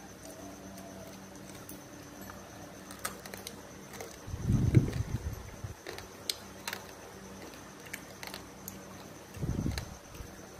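Chopsticks clicking lightly against bowls and plates during a meal, a few scattered clicks, over a steady high drone of crickets. Two brief low muffled sounds, about four and a half seconds in and near the end, are the loudest.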